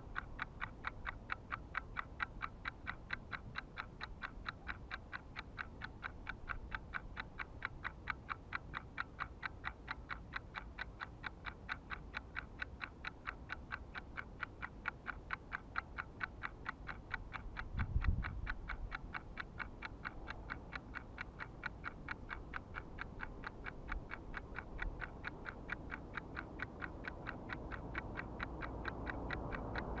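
Steady, regular ticking, about three ticks a second, with a low thump about eighteen seconds in and a hiss building near the end.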